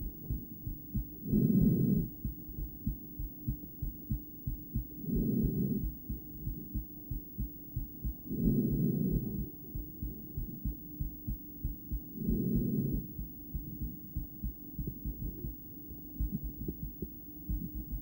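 A woman's heartbeat heard through a stethoscope on the chest: a regular run of low, dull lub-dub thumps. About every three and a half to four seconds her breathing swells up loudly through the stethoscope, four times, over a faint steady hum.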